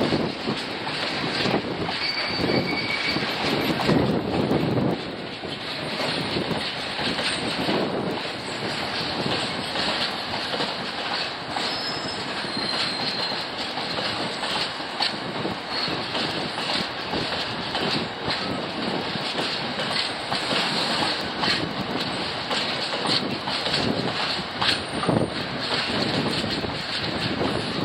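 Covered bogie hopper wagons of a freight train rolling past steadily, wheels clattering over the rail joints. Brief faint high wheel squeals come a couple of times.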